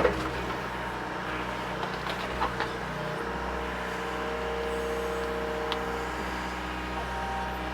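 Mini excavator's diesel engine running steadily under load as its hydraulics work a tree stump, with a few faint knocks about two seconds in and a higher tone held for about two seconds midway.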